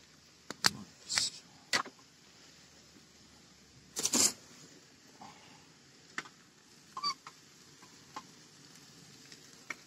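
Scattered sharp clicks and short scrapes of a metal spatula against a frying pan as fried potatoes with mushrooms are stirred, the loudest scrape about four seconds in.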